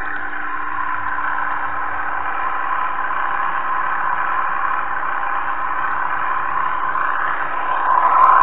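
Narrow-gauge model train running, heard from a camera riding on it: a steady whir of the small electric drive and wheels on the rails, growing louder near the end, with a short click right at the end.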